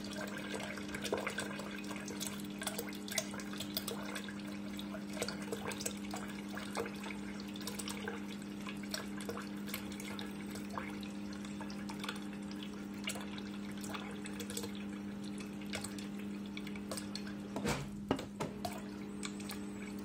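Water from a Brastemp side-by-side fridge's door dispenser running in a steady stream into a stainless steel pot, splashing and dripping, over a steady electric hum from the dispenser. The fridge's water reservoir is being flushed out after a water filter change. The flow is briefly interrupted about 18 seconds in.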